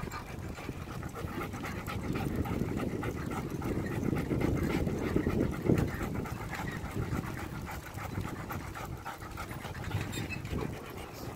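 German Shepherd panting fast and steadily as it runs beside a moving bicycle, heard over the steady low rumble of the ride on a paved path.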